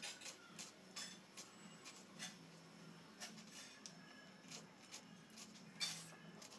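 Knife slicing and dicing a tomato on a wooden cutting board: faint, irregular taps of the blade meeting the board, the loudest near the end.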